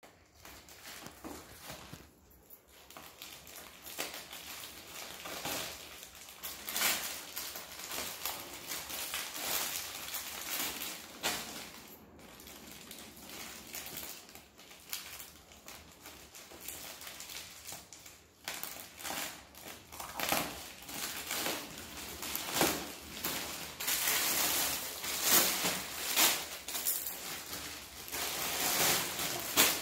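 Plastic and foil parcel wrapping crinkling and rustling as it is cut open with scissors and pulled apart, in irregular bursts that grow louder near the end.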